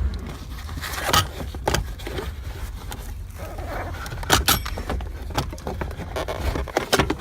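Plastic center console and trim of a 1998 Honda Civic being pulled off, with scattered knocks, clicks and rattles over a low rumble.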